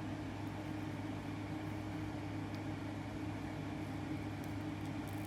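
Steady mechanical hum with an even hiss, like a fan running, with a few faint ticks.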